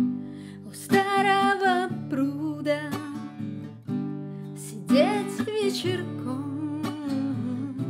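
Song with strummed acoustic guitar and a voice carrying the melody in long, wavering notes without words.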